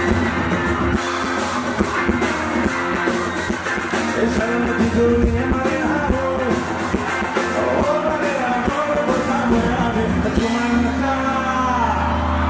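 Live rock band performance: a male singer sings a melody into a microphone over electric guitar and a steady drum beat. About ten seconds in, a sustained low bass note takes over underneath.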